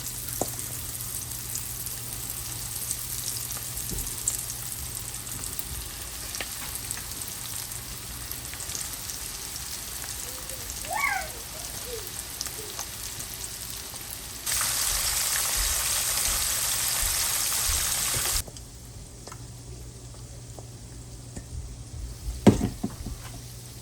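Shrimp sizzling as they fry in a pan. A louder, even hiss comes in abruptly past the middle and cuts off about four seconds later, and a sharp clatter comes near the end.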